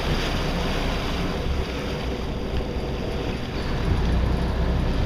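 Wind buffeting the microphone and water splashing along a sportfishing boat's side, over a steady low rumble.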